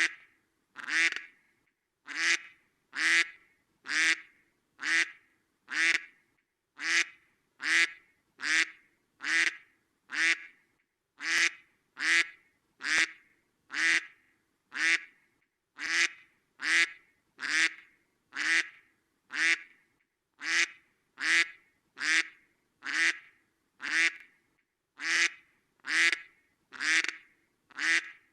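Duck quacking over and over, a little under two short quacks a second at an even pace, each quack alike.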